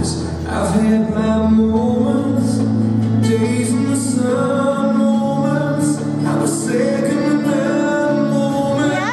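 A song with a sung melody over instrumental backing, the accompaniment to the dance routine.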